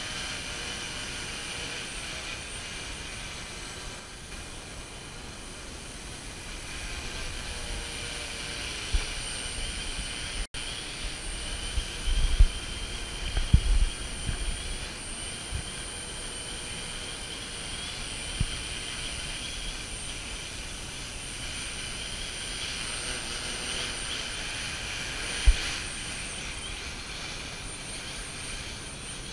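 Quadcopter's electric motors and propellers buzzing steadily while it hovers, flown on an APM 2.6 controller in altitude-hold mode, where the motors are described as "jumping". A few dull low thumps come near the middle.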